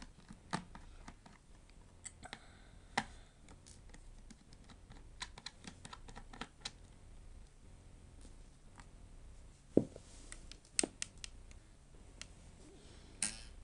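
Scattered small clicks and taps of a screwdriver and tiny screws being handled on a laptop's case during disassembly, with two sharper knocks about ten and eleven seconds in.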